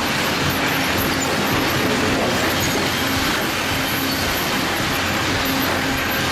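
Steady industrial machinery noise, the running of a railway tie processing line's saws, rollers and conveyors, with a faint low hum under a dense metallic hiss.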